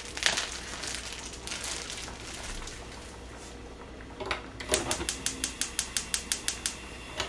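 Gas hob's spark igniter clicking rapidly, about seven clicks a second for two seconds, as a burner knob is held turned to light the burner. A few soft knocks from handling come before it.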